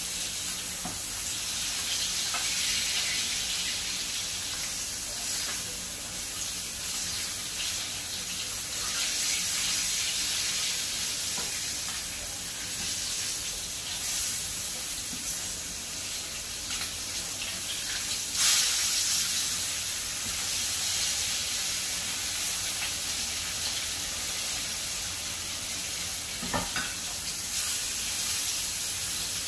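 Salmon pieces sizzling steadily in hot oil in a frying pan. Occasional clicks of metal tongs against the pan as the pieces are turned, with one louder knock about two-thirds of the way through.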